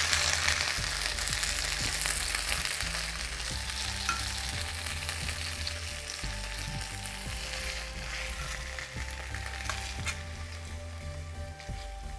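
Hot oil and food still sizzling in a wok just after the heat is turned off, the sizzle slowly fading.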